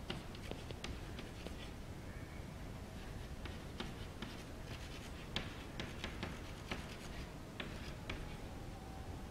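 Chalk on a chalkboard as words are handwritten: irregular short taps and scratches of the chalk stick against the board.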